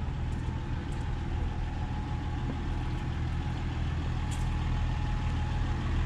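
Diesel engine of a Bobcat T650 compact track loader idling with a steady low hum, growing slightly louder toward the end.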